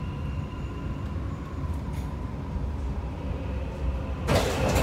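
Dubai Metro train running, heard from inside the cabin as a steady low rumble, with a faint whine that fades out within the first second. Near the end a sudden loud rush as an oncoming metro train passes alongside.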